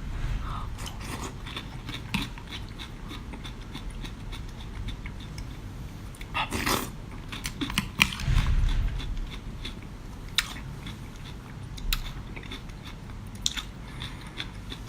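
A person chewing and biting seafood close to the microphone, with scattered sharp mouth clicks and a louder burst about seven seconds in.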